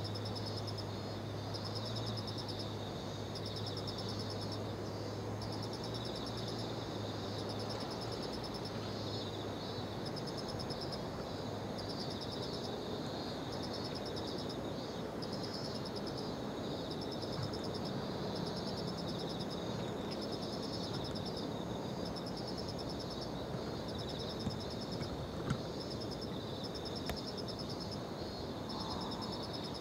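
Insects calling: a steady high buzz with pulsing bursts repeating about every two seconds, over a constant outdoor background rush. A low hum runs underneath for roughly the first third and then stops.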